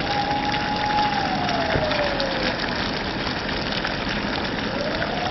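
Muddy water forced up by soil liquefaction, gushing and running steadily along a roadside gutter. Over it a siren wails slowly, falling away about two seconds in and rising again near the end.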